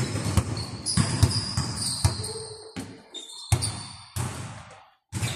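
A basketball bouncing on a hardwood gym floor in play, a series of irregularly spaced thumps, with high, brief squeaks of shoes on the court. The sound drops out for a moment near the end.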